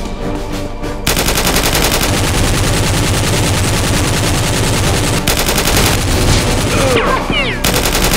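Rapid automatic gunfire sound effect, laid over the action in place of the toy blasters' own sound. It starts suddenly about a second in and runs in fast continuous bursts, with a short break near the end.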